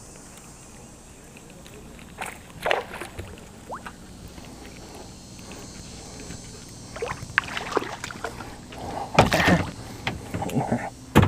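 A small bass being reeled in and landed into a plastic kayak: irregular splashes and knocks start about two seconds in and grow busier, with the two loudest near the end as the fish is lifted from the water and swung aboard.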